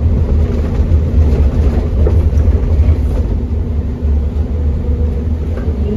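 Scania OmniCity double-decker bus (CN230UD chassis, five-cylinder diesel with ZF Ecolife six-speed automatic) driving along, its engine and drivetrain running steadily with a heavy low rumble and road noise, heard from inside the upper deck.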